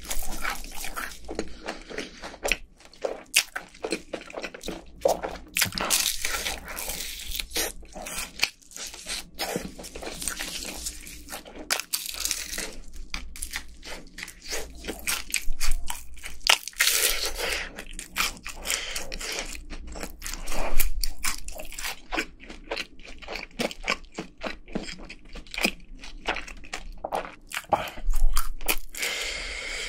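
Crisp crunching and chewing of honey-glazed fried chicken, bitten and eaten in irregular crackling mouthfuls. There are louder bursts of crunching several times.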